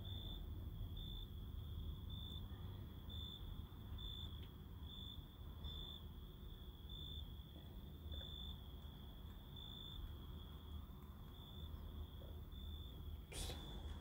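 A cricket chirping, one short high chirp about every second, over a low rumble. A single sharp click near the end.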